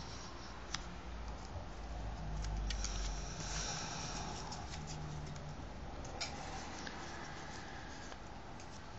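A strip of paper creased into triangles being folded and unfolded by hand: soft rustling and crinkling of paper with a few small clicks, a little louder a few seconds in.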